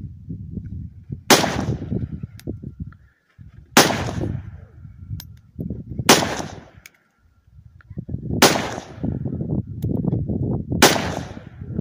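Five rifle shots, about two and a half seconds apart, each a sharp crack with a short ringing tail, over a low rumble.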